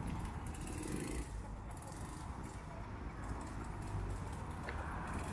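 Small moped engine running as a moped pulls away.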